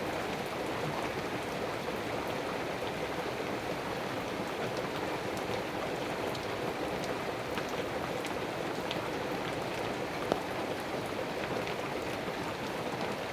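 Steady rain falling, a continuous even patter, with scattered single drops ticking down from wet leaves; one drop lands louder about ten seconds in.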